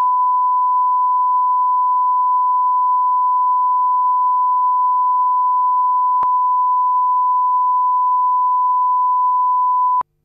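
Broadcast line-up tone that goes with the colour bars: a single steady pure tone at about 1,000 hertz, held at one level. There is a faint click about six seconds in, and the tone cuts off suddenly near the end.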